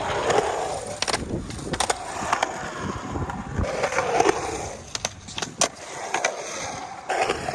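Skateboard riding through a skatepark's ramps: the wheels roll with a rumble that swells and fades as the board carves, broken by several sharp clacks of the board and trucks.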